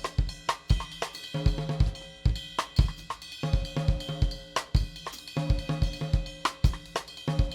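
Ellis drum kit with Zildjian cymbals played in a repeating independence pattern: bass drum kicks and ringing snare and tom strokes over cymbal time, with no break.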